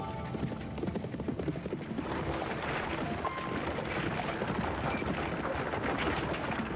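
Horse-drawn chariot at speed: a dense clatter of galloping hooves and rumbling wooden wheels, growing denser about two seconds in.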